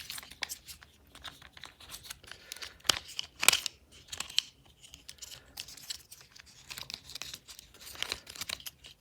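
Plastic transforming robot toy being handled: irregular crinkling and rustling with small clicks, a sharp snap about three seconds in and a louder rustle right after.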